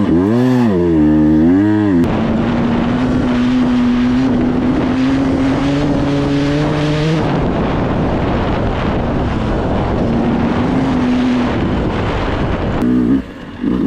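Trail motorcycle engine running under a rider. The revs swing up and down quickly about three times in the first two seconds, then hold at a fairly steady pitch that rises slowly, eases and picks up again. Near the end the sound briefly drops.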